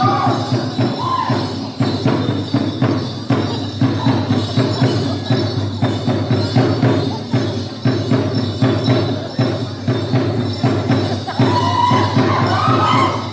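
Kawasaran war-dance music: rapid, steady drum beats with jingling percussion. Near the end a voice cries out in a long held call.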